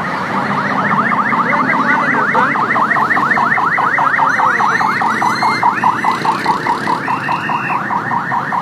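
Electronic siren sounding a fast, repeating rising whoop, about five sweeps a second, over street traffic noise.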